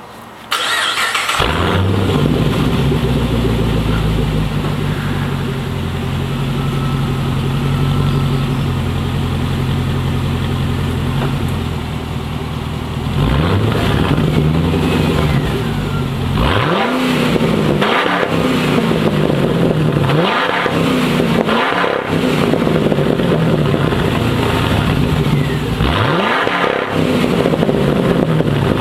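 Pontiac G8 GT's V8 through a Solo aftermarket exhaust, starting up about half a second in and idling steadily. In the second half it is revved about five times, each rev rising and falling in pitch.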